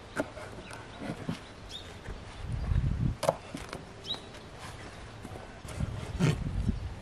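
Fresh sorrel leaves being handled on a wooden table: rustling, a few sharp clicks and dull low thumps. A bird chirps briefly twice.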